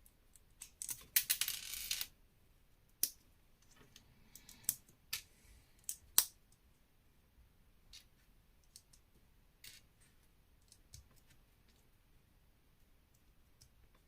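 Plastic Lego pieces clicking and snapping together. A short rattle of loose pieces comes about a second in, then a handful of sharp clicks that grow sparse.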